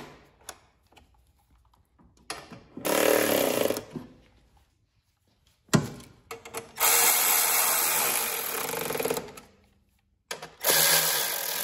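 Milwaukee cordless electric ratchet running in three short bursts, driving bolts home. The first and last bursts are about a second each and the middle one is longer. A sharp click falls between the first and second bursts.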